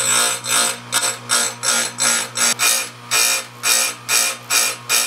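Electric chainsaw-chain sharpener's grinding wheel touched to a chain tooth in short repeated jabs, each a brief hiss of stone on steel, about two and a half a second, over the steady hum of the motor. The short jabs keep the tooth's steel from heating up and work off the burr.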